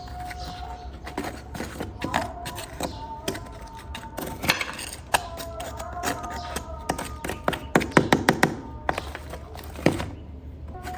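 Clicks and taps of a small plastic toy car being handled and worked on, with a fast run of clicks about eight seconds in.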